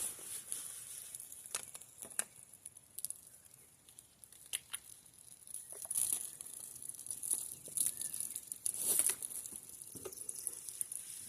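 Scattered scrapes, taps and crinkling as a small outdoor table is wiped and cleared off by hand, with the loudest strokes about six and nine seconds in.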